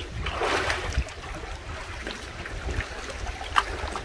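Feet wading and splashing through shallow water over flat rock, with a burst of sloshing in the first second and a sharp tap about three and a half seconds in.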